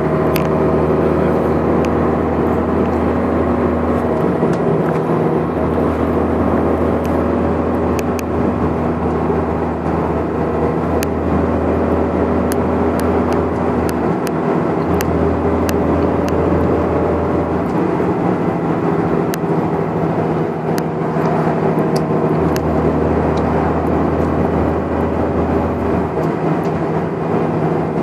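Volvo Olympian double-decker bus heard from inside the passenger saloon, cruising steadily at speed: diesel engine and road noise with a low drone that comes and goes in stretches of several seconds, and sharp ticks and rattles now and then.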